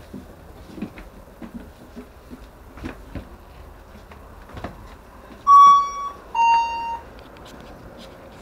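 A two-note electronic chime: a higher tone and then a lower one, each about half a second long, sounding about five and a half seconds in. Faint clicking and rattling run underneath.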